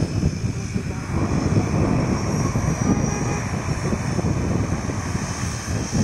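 Twin-engine propeller airplane running on the runway: a steady engine drone with a high whine over it, with no let-up.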